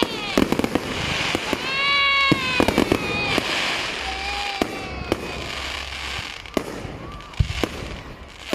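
Fireworks going off: irregular sharp bangs and crackles at varying distances.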